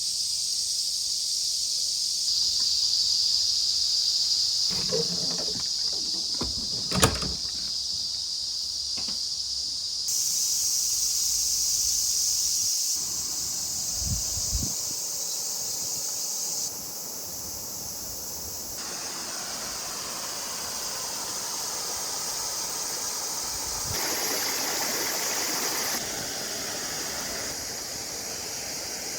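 Steady hiss of a running mountain stream, jumping in level abruptly every few seconds between cuts, with a few sharp knocks around five to seven seconds in.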